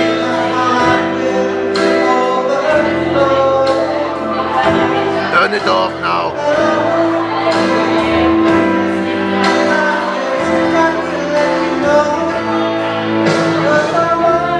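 A man singing karaoke into a microphone over a backing track, both amplified through the bar's speakers, with a steady beat.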